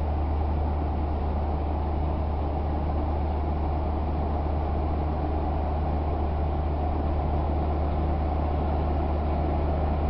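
A Great Lakes bulk freighter's diesel engines running close by, a steady deep hum with an even rumble over it.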